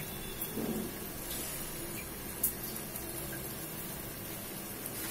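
Steady hiss of rice and vegetables cooking in a pan on a gas stove, with a single light knock about two and a half seconds in.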